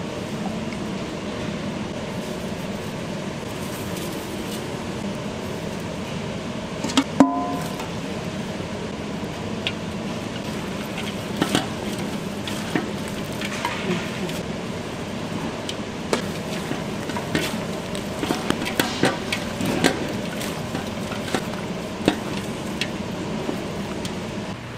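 Commercial kitchen work: scattered clicks and knocks of utensils and containers over a steady hum, with one loud ringing metal clang about seven seconds in.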